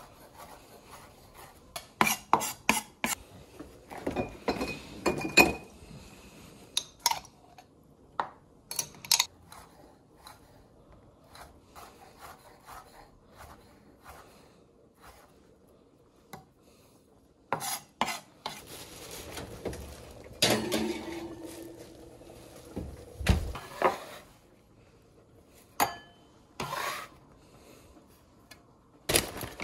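Chef's knife chopping fresh cilantro on a wooden cutting board: irregular runs of quick taps with pauses between, and the blade scraping the chopped herbs across the board.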